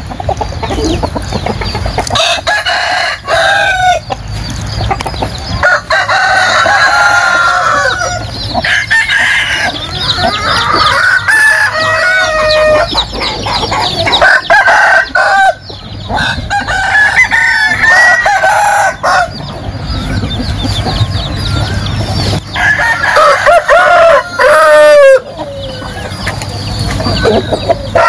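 Several gamecocks (fighting roosters) crowing and clucking, their long calls overlapping one after another throughout.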